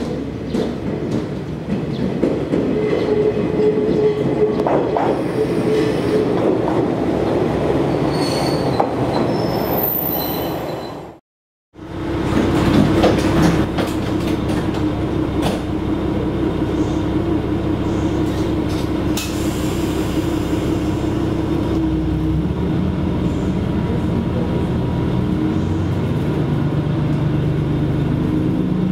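Diesel railcar arriving at a station, with brief high wheel squeal about a third of the way in. Then, from inside the car, a steady engine hum at rest; the engine note drops lower and grows past the two-thirds mark as the car starts to pull away.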